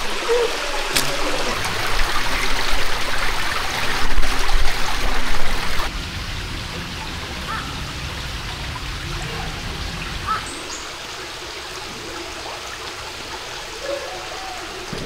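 Forest ambience with a steady rush of running water. A louder, uneven low rumble runs for the first six seconds and then drops away. A couple of short bird chirps come later.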